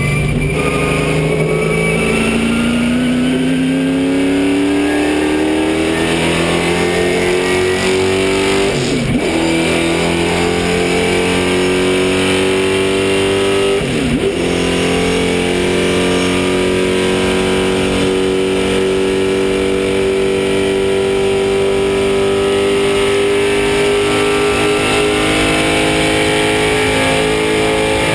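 Race car engine heard from inside the cockpit, pulling hard with its note rising steadily, broken twice by quick breaks about nine and fourteen seconds in, then holding high revs at full throttle.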